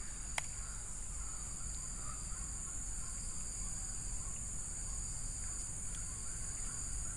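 Steady high-pitched drone of an insect chorus, with a single sharp click about half a second in.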